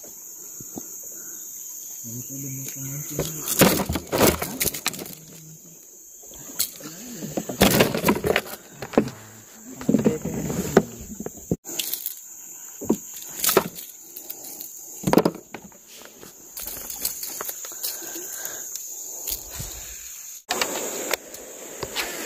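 Insects droning steadily at a high pitch, broken by many sharp knocks and clicks.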